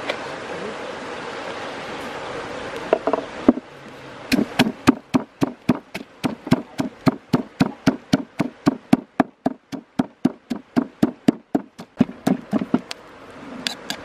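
Wooden pestle pounding red chilies, garlic and salt in a wooden mortar: a fast, even run of dull knocks, about four strokes a second, starting about four seconds in after a few seconds of steady outdoor noise.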